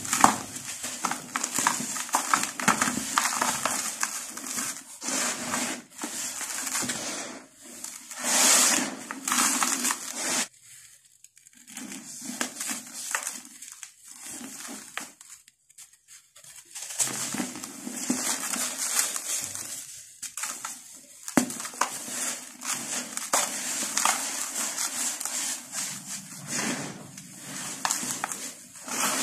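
Hands crushing and crumbling lumps of dry, gritty dirt, a dense crackling crunch that drops away briefly twice in the middle.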